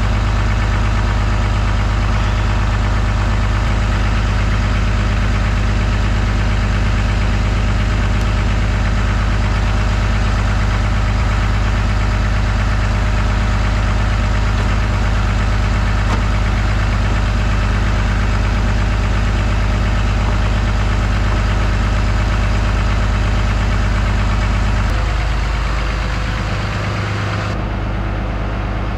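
2003 Dodge pickup's engine idling steadily, with a shift in the sound near the end.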